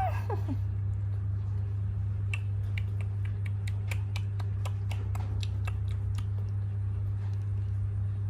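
Baby monkey chewing and smacking its lips on jelly: irregular small wet clicks, a few a second, over a steady low hum. A brief rising-and-falling squeak at the very start.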